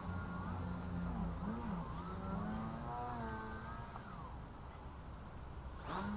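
Small electric RC plane's Sunnysky 1800kv brushless outrunner and GWS 8x4.3 propeller buzzing in flight, its pitch dipping and rising several times with throttle changes and surging up sharply near the end. A thin steady high whine runs above it.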